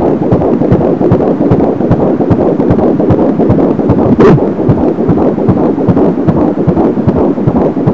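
Fetal heartbeat at 13 weeks of pregnancy picked up by a Doppler ultrasound: a fast, even pulse over a steady hiss, with a brief louder crackle about four seconds in.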